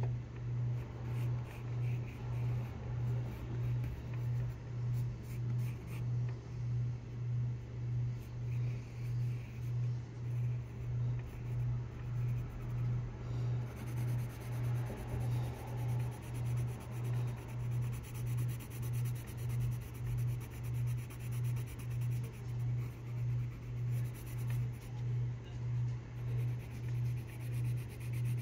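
Graphite pencil scratching on sketchbook paper, sketching and shading. Under it is a loud, steady low hum that throbs about one and a half times a second.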